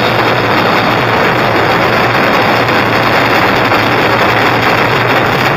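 Batucada drum ensemble playing a sustained roll: many drums rumbling together as one loud, steady wash of sound with no separate beats.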